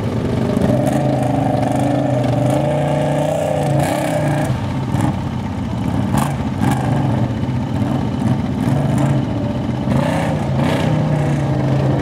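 Several ATV engines running and revving as the quads churn through a muddy creek, their pitch rising and falling with the throttle.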